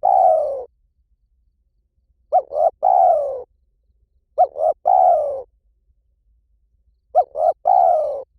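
Spotted dove cooing: about three and a half phrases, each two short coos and a longer coo that falls in pitch, repeating about every two seconds.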